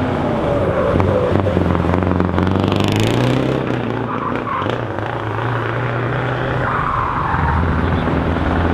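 Tuned Scania V8 truck engine, claimed at over 1000 hp, revving hard as the truck accelerates away: a loud, open exhaust note whose pitch rises and falls several times.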